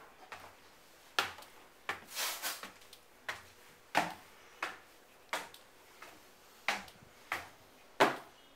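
Footsteps on wooden floorboards, about one and a half steps a second, each a short sharp knock.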